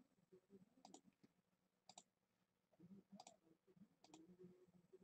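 Near silence with four faint double clicks, about a second apart.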